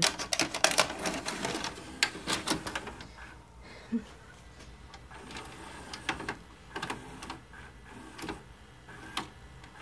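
A VCR loading a VHS cassette and threading the tape into play. A quick run of mechanical clicks and clunks fills the first few seconds, then single clicks follow every second or so.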